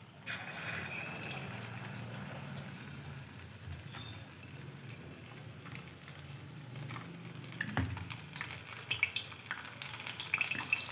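A battered chicken lollipop goes into hot oil in a kadhai, and the oil starts sizzling suddenly and keeps on as the piece deep-fries. There is a single knock about eight seconds in, and sharper crackling pops grow toward the end.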